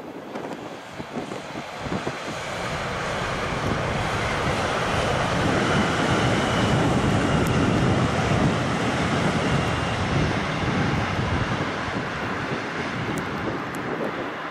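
Bombardier Talent 2 electric multiple unit passing: the rumble of wheels on rail grows, is loudest about halfway through, then eases as the train moves away. A faint high whine comes through while it is closest.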